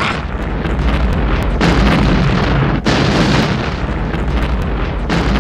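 Explosion sound effect: a long, loud rumbling blast with a heavy low end, broken by a brief cut about halfway through before the rumble resumes.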